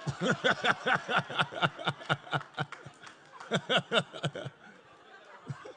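Laughter after a stand-up punchline: quick, rhythmic ha-ha pulses, several a second, for about four seconds, then dying away.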